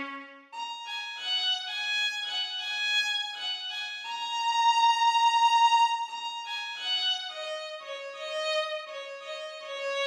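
A slow solo violin melody used as a ringtone. After a brief pause at the start, single notes change about twice a second, one note is held for about two seconds in the middle, and the line then steps downward.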